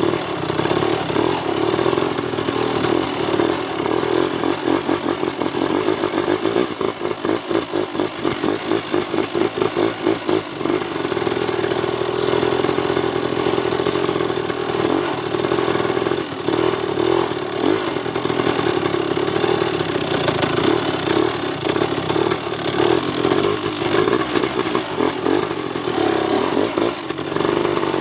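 Small motorcycle engine running under load as the bike rides a rough dirt track carrying timber across it. The engine note rises and falls with the throttle and keeps a steady rapid beat throughout.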